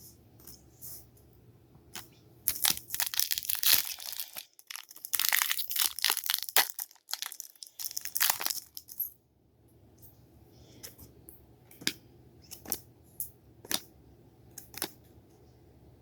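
A trading-card pack wrapper being torn open and crinkled in two stretches of dense rustling, followed by scattered light clicks of the cards being handled and flicked through.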